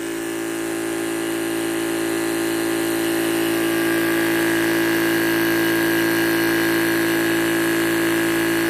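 Yong Heng two-stage electric piston compressor running steadily under load as it charges a tank to about 4,000 PSI. It makes an even, constant hum that grows slowly louder.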